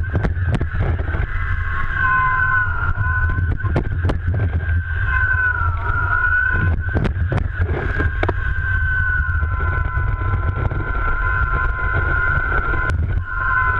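Water rushing and spraying past a GoPro mounted on a slalom ski as it cuts across choppy water, a heavy low rumble with sharp slaps and knocks from spray and chop hitting the ski. A steady, slightly wavering high whine runs underneath.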